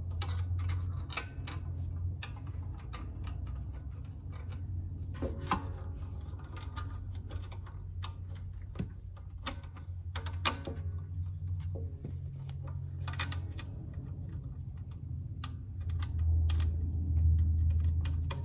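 Irregular small clicks and taps of brass banjo hardware being handled: a bracket hook is threaded through the wire armrest and a nut is started by hand at a bracket shoe. A low steady hum runs underneath.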